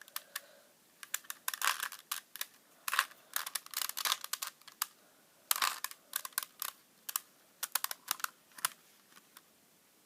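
Plastic Rubik's Cube being turned by hand: irregular clicks and clacks of the layers in quick flurries, stopping shortly before the end.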